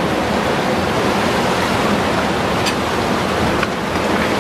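Surf breaking on a rocky shore: a steady, loud rushing wash of waves.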